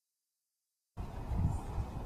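Silence, then about a second in a steady low rumble of outdoor background noise cuts in: distant highway traffic.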